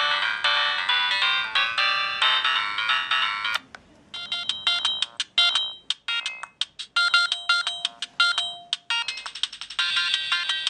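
Siemens A31 mobile phone playing its ringtones through its small speaker as electronic melodies. One tune stops with a click about a third of the way in, and after a brief pause a different, choppier tune of short notes begins.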